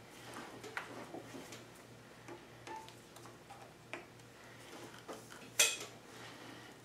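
Cast-iron cross slide of a South Bend 13-inch lathe being slid by hand on its oiled dovetail ways and the gib screw turned with a screwdriver: light metal clicks and scrapes, with one sharp metal clack about five and a half seconds in. It is being worked back and forth to feel the resistance of the gib adjustment.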